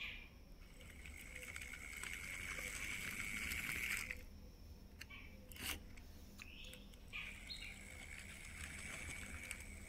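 Plastic toy tractor and trailer rolling along the floor, a faint high whirring in two stretches with a short click between them.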